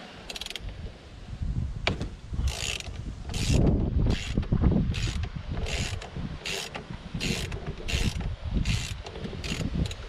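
Ratchet wrench clicking on its return strokes, about ten short bursts one every 0.7 s or so, as the steering wheel's centre bolt is wound loose.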